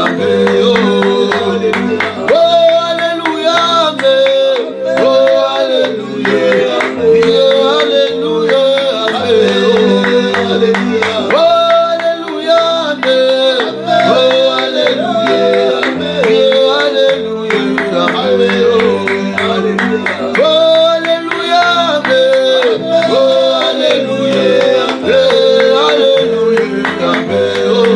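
Gospel worship song: male voices singing held, gliding notes over electronic keyboard accompaniment with a walking bass line and a steady beat.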